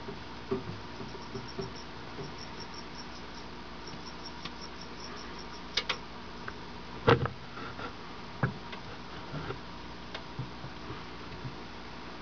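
Soft taps and clicks against a plastic snake enclosure during feeding, with one sharp knock about seven seconds in and another about a second later, over a steady hiss and hum. A faint run of high, evenly spaced chirps, about four or five a second, goes on through the first half.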